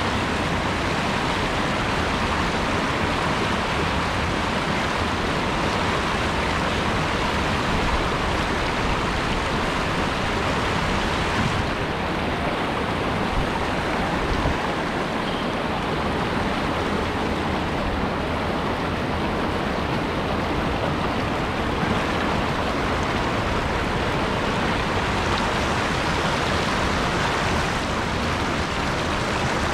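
Fast mountain stream rushing over boulders and cobbles in a white-water riffle close by, a steady loud rush of water. Its hiss turns a little duller about twelve seconds in.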